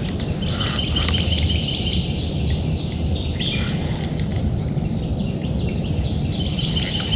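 Outdoor ambience: a songbird singing in runs of quick repeated chirps, near the start and again near the end, over a steady low rumbling hiss and a thin high steady buzz.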